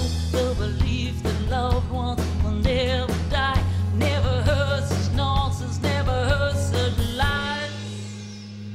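A woman sings with vibrato over a live rock band with drums and a heavy bass line. About seven seconds in the singing and drums stop, and a low held note rings on more quietly.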